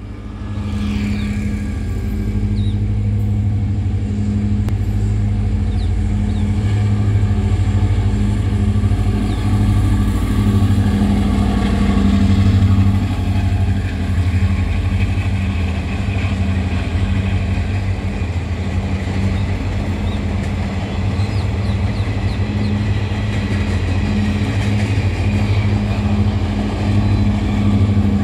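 Diesel multiple unit (DMU) train pulling away and rolling past, with its diesel engine giving a steady low hum over the noise of its wheels on the rails.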